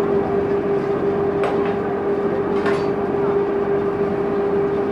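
Sightseeing boat's engine running with a steady, even drone. Two short higher-pitched sounds come over it, about one and a half seconds in and again near three seconds.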